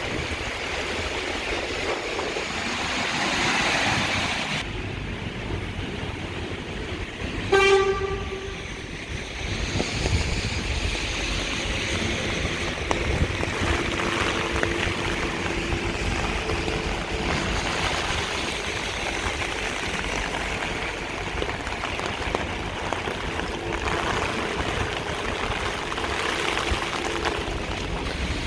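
Wet city street ambience: steady rain and traffic noise, with one short, loud horn toot about seven and a half seconds in.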